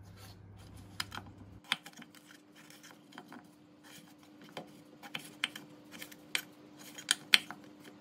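Kitchen knife cutting pears into wedges on a wooden chopping board: short, sharp taps as the blade goes through the fruit and meets the board, irregular at first and more frequent toward the end.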